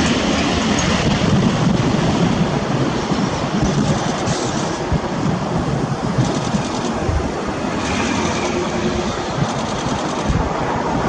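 Fokker 50 twin-turboprop airliner's engine noise, a loud steady rumble without a clear tone.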